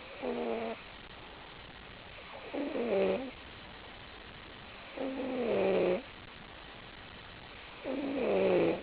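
Snoring: four snores at a steady breathing rhythm, about two and a half seconds apart, each under a second long, with a pitched tone that slides slightly down in each.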